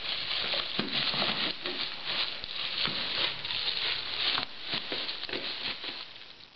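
Cellophane wrapping on a gift basket crinkling and crackling in quick irregular rustles as an Old English Sheepdog noses and paws into it, fading out near the end.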